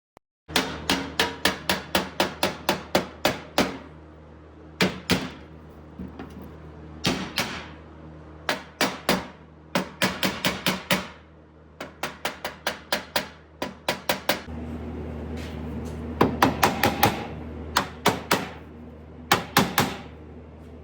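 Hammer blows on steel sheet metal, a patch panel being fitted to a car door's bottom edge. The blows come in quick runs of about four a second, each ringing briefly, with short pauses between runs.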